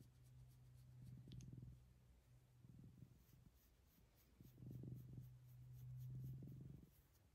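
Cat purring faintly, a low rumble swelling and fading about every second and a half while it is stroked under the chin, with soft scratchy rubbing of fingers in its fur.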